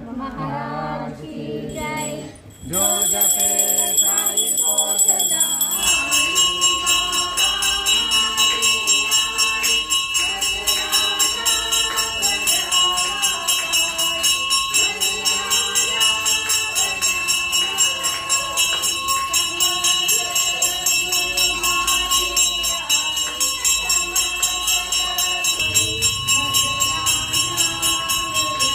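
Devotional music: voices singing over a steady jingling of bells and a regular beat, starting about three seconds in.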